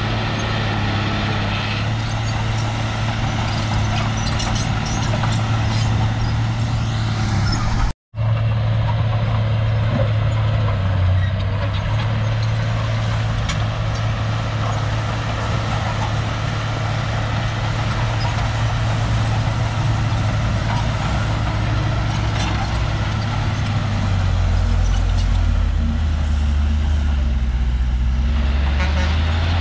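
Crawler bulldozer's diesel engine running steadily, with light clanks over it. The sound cuts out completely for an instant about eight seconds in, and the engine note drops lower for a few seconds near the end.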